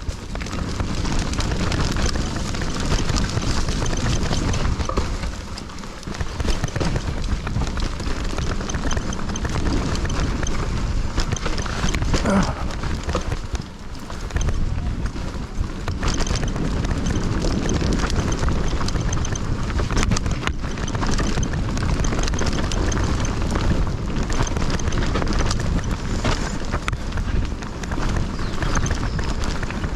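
Mountain bike riding fast down a dirt trail: wind buffeting the microphone over the sound of the tyres on dirt. The bike rattles and knocks over bumps throughout.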